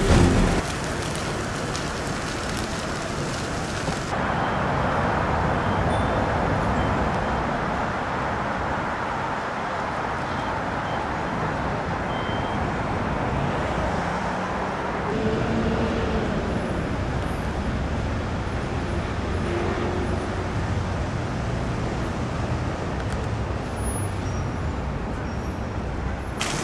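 Steady road traffic noise, with a vehicle passing briefly about halfway through.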